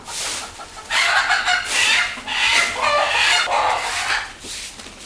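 Domestic chickens clucking and cackling: a run of loud calls repeated in quick succession from about a second in, dying away near the end.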